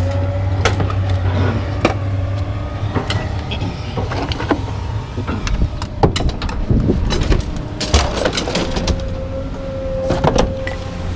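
Pieces of scrap metal clanking and knocking at irregular intervals as they are thrown off a load, over a steady engine hum.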